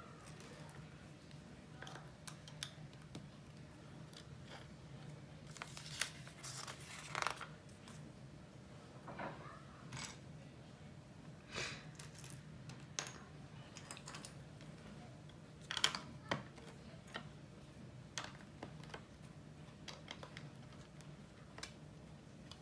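Plastic LEGO bricks being handled and pressed together on a wooden tabletop: irregular small clicks and clatters, the sharpest about 16 seconds in, over a faint steady low hum.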